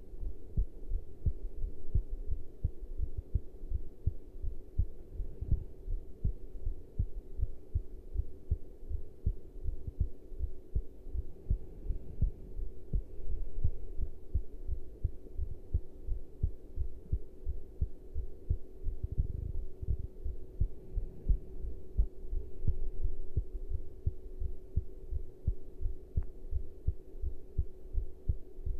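Human heartbeat after caffeine intake: a steady run of low, regular thumps, with a faint steady hum underneath.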